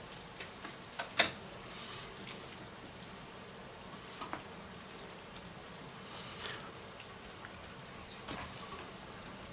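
Soft handling sounds of a nitrile-gloved hand pressing and spreading coleslaw onto a cut baguette, with a sharp tap about a second in and a few lighter ticks later, over a steady faint hiss.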